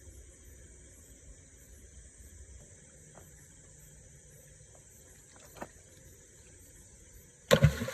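Night insects, crickets, chirping steadily with a few faint ticks, then, about seven and a half seconds in, a sudden loud splash as a blade is struck into the shallow water at a tilapia.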